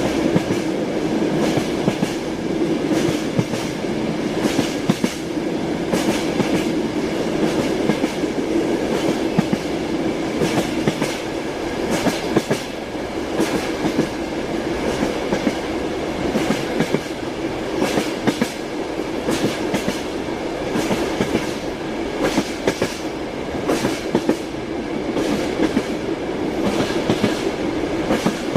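Moving train wheels clicking over the rail joints: a steady running rumble with repeated sharp clickety-clack beats throughout.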